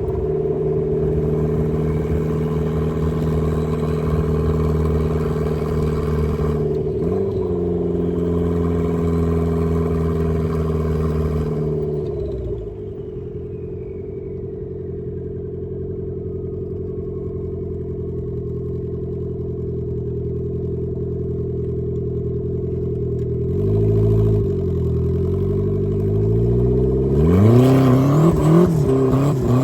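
Turbocharged Mazda Miata four-cylinder engine pulling at steady revs, with a quick gear change about seven seconds in. Around twelve seconds the throttle lifts and the engine drops to a low drone while a thin whine falls slowly away. Near the end the revs climb hard again under acceleration.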